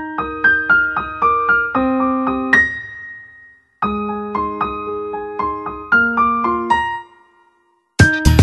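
Background music: a solo piano plays two short phrases of notes, each fading out into a pause of under a second. Fuller, louder music starts near the end.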